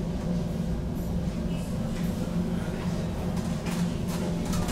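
Steady low hum and rumble inside a BN GTL8 articulated tram on its line, from its running gear and onboard equipment.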